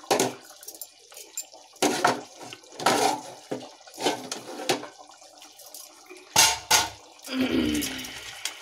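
Thick masala gravy bubbling in a steel kadai, popping and spluttering in irregular bursts, with a longer burst near the end.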